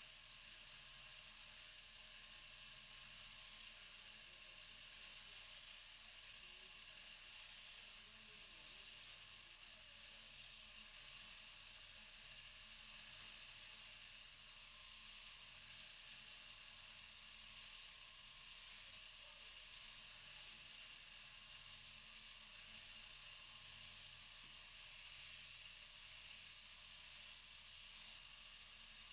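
Near silence: a faint, steady hiss with a low hum underneath that fades in and out.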